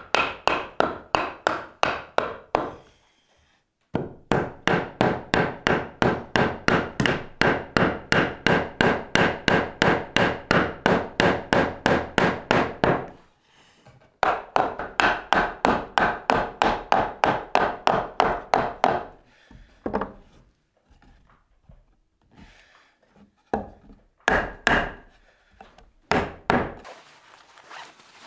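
A wooden mallet striking a timber beam in fast, even runs of about three blows a second, knocking a glued domino joint home; three long runs are followed by a few scattered single blows near the end.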